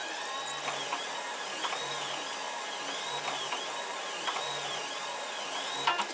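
3D printer at work, its stepper motors whining in repeated rising-and-falling sweeps, roughly one a second, as the hot end moves back and forth between two cogs, over a steady hiss. A couple of sharp clicks near the end.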